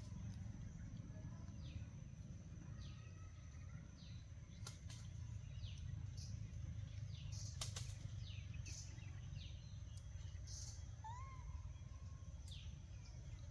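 Forest ambience: a steady low rumble of wind or handling on the microphone, with birds giving repeated short, high, falling chirps over a thin steady high tone. A few sharp clicks are spread through it.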